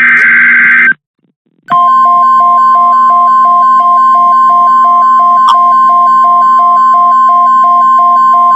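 Weather-radio emergency alert tones: the end of a one-second warbling SAME data burst, then a short silence, then the long steady 1050 Hz warning alarm tone that comes before the spoken message, with a fainter tone beeping about three times a second beneath it.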